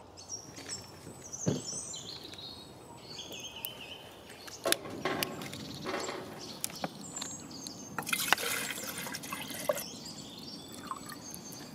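Water poured from a plastic jug into a stainless steel pot, a rushing splash about two-thirds of the way through, among a few clicks and knocks of the pot being handled.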